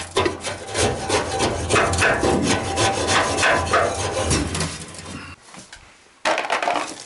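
Wire brush scraping back and forth inside a gas furnace's metal passages, cleaning them during service: a run of quick rasping strokes that stops about five seconds in, followed by one more short scrape near the end.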